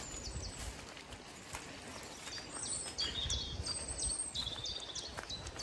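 Small songbirds chirping and whistling in short high calls, some held briefly, over a low uneven rumble.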